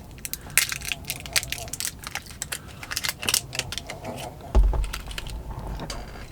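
Handling noise: a run of small clicks and clinks as glass Ramune soda bottles are picked up and moved, with one heavier thump about four and a half seconds in followed by a low rumble.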